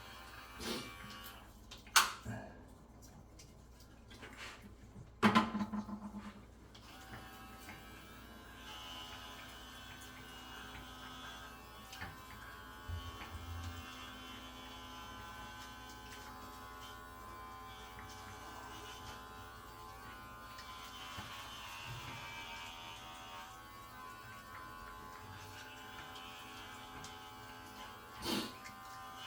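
Electric pet hair clippers running steadily as a cat's fur is trimmed, with a few sharp knocks about two and five seconds in and again near the end.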